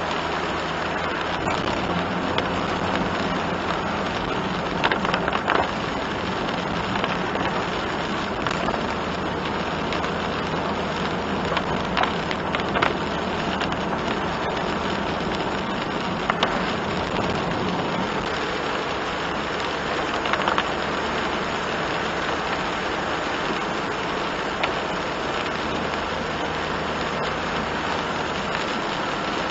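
Rain drumming on a moving kei van's windshield and body, heard from inside the cabin, over steady tyre hiss on the wet road and a low engine hum, with a few sharper ticks scattered through.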